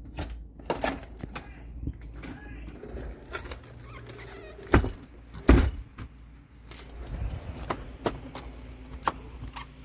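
A run of sharp clicks, knocks and rustles from a phone being handled while someone walks out through a door, with a thin high squeak around the middle and two louder knocks about five seconds in.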